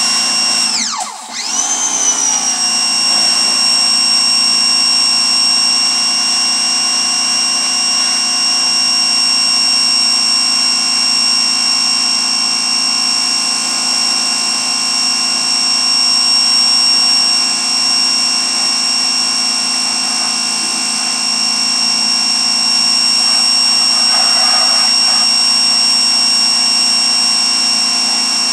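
Pressure washer running with a steady high whine. About a second in the whine drops in pitch and loudness briefly, then comes back up.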